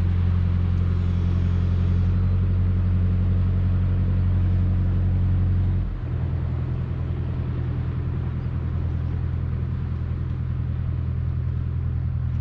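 An engine running steadily with a low hum; its note shifts about six seconds in and stays steady after.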